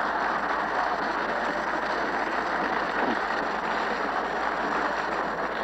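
Sustained, steady applause from the members of parliament after a punchline, dull and thin-sounding as on an old radio broadcast taped off the air.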